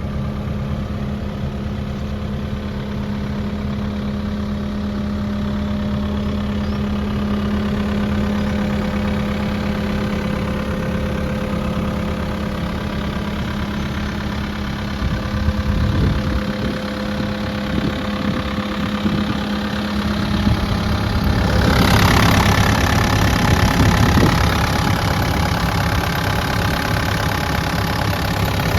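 Diesel engine of a Kubota KX080-3a 8-tonne excavator idling steadily. About 21 seconds in it grows louder and busier, with a whine, for a few seconds before settling.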